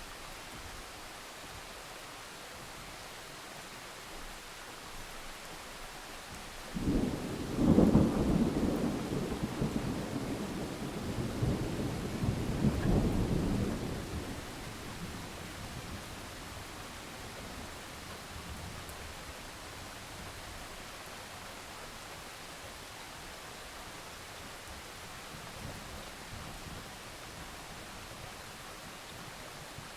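Steady rain hiss with a thunder rumble that breaks in suddenly about seven seconds in, swells a second time and fades out after about seven seconds.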